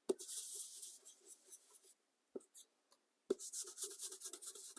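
Dry scratching strokes worked across cardstock, in two spells: one at the start lasting over a second, and another about three seconds in made of many quick strokes, with a small tap or two between them.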